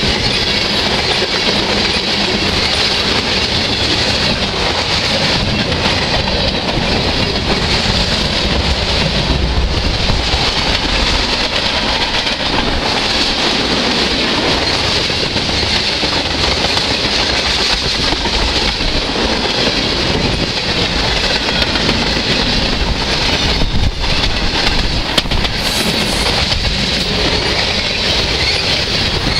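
Freight cars of a manifest train, mostly loaded tank cars, rolling past close by: steel wheels on the rails making a steady, loud rumble and clatter over the rail joints.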